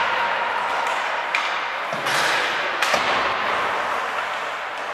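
Ice hockey game sounds on the rink: a steady hiss of skates and arena noise, with a few sharp clacks of sticks and puck about a second, two seconds and three seconds in.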